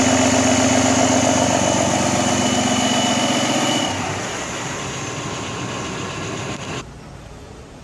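Cummins ISB 5.9 L turbocharged inline-six diesel running at a steady idle. About four seconds in the engine sound cuts off, leaving a fainter hiss that drops away again near the end.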